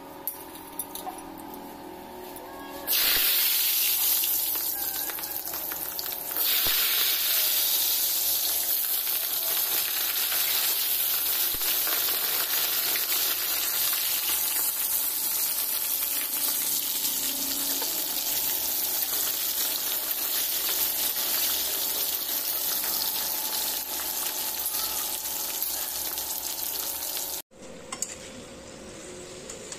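Halved baby potatoes frying in hot oil in an iron kadai: loud, steady sizzling that starts suddenly about three seconds in and cuts off shortly before the end.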